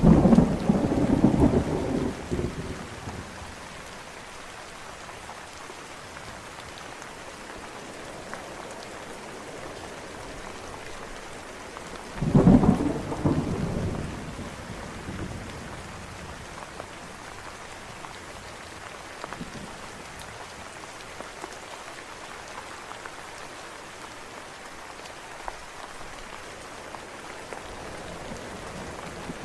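Steady rain with two claps of thunder. One is already rolling at the start and dies away over about three seconds; the other breaks about twelve seconds in and rumbles off over the next few seconds.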